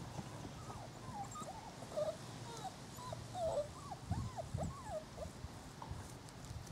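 Six-week-old Cardigan Welsh Corgi puppies giving a rapid string of short, high-pitched whines as they play, most of them in the first five seconds, each call rising and falling in pitch, with a few low thumps in between.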